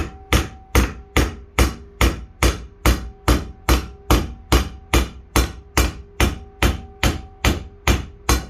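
Steel hammer striking a heated steel rod clamped in a bench vise, bending it to an angle: a steady run of evenly spaced blows, about two and a half a second, with a faint metallic ring carrying on between them.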